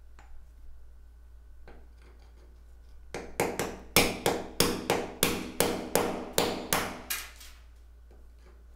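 Claw hammer striking a chisel to chip out ceramic wall tile around a shower valve: a run of about a dozen sharp, ringing strikes, about three a second, starting about three seconds in and lasting some four seconds.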